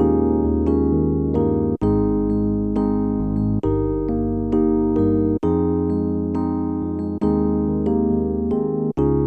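Background music on an electric-piano-like keyboard, playing sustained chords that change with a brief gap about every two seconds.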